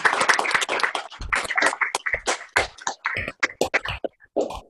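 Small group clapping, dense at first and thinning to scattered single claps near the end, with a few dull thumps among them.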